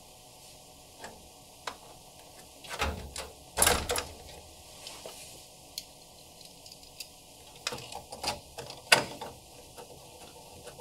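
Scattered clicks and knocks of an air source heat pump's service panels being handled: the hinged electrical panel swung shut and the cover below it taken off, the loudest knocks a few seconds in. More light clicks of a screwdriver working a screw on the lower opening follow near the end.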